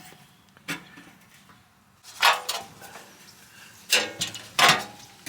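Handling noises of hand tools and sheet metal: a light click, a scraping rustle about two seconds in, and two louder clatters near the end.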